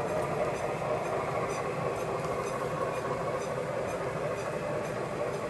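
Lionel O-gauge model train rolling on three-rail track: a steady rumble of wheels and motor with a faint regular ticking, about three times a second.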